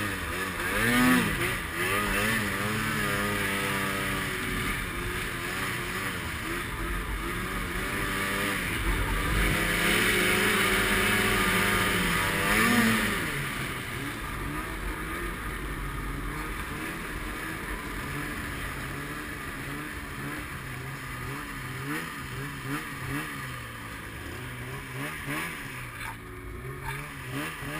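Arctic Cat M8 snowmobile's two-stroke engine running under throttle while ridden across snow. It revs up about a second in, holds high revs for several seconds, eases off around thirteen seconds, then rises and falls with throttle blips. A steady hiss of wind runs underneath.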